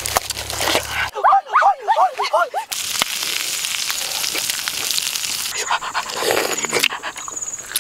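A dog whimpering in a quick run of short, rising-and-falling whines. Then comes the steady sizzle of pig offal grilling on a hot stone, and near the end someone bites and chews into fresh pineapple.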